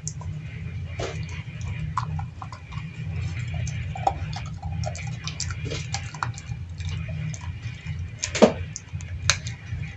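A husky chewing on electrical wires and small plastic and metal parts: irregular clicks and crunches, with one sharper crack about eight seconds in, over a steady low hum.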